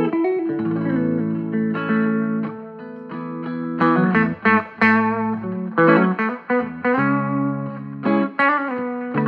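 Electric guitar with humbucker pickups played through a small 5-watt 6V6 valve amplifier into a 10-inch speaker: plucked chords that ring on, mixed with picked single notes, with a light overdrive.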